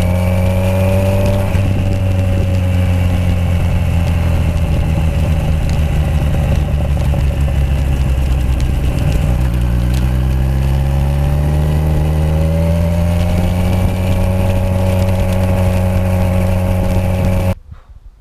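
Kawasaki Z1000SX inline-four running through aftermarket Toce three-port exhausts while the bike is ridden. The engine note rises briefly at the start, drops back, then climbs steadily under acceleration and holds, cutting off suddenly near the end.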